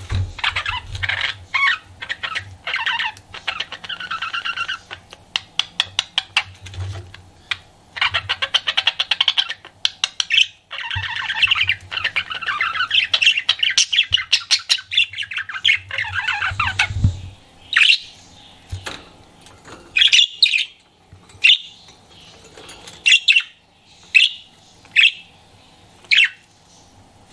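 Pet budgerigar warbling: a long run of fast chattering, clicking notes for about the first sixteen seconds, then separate short, sharp chirps about once a second.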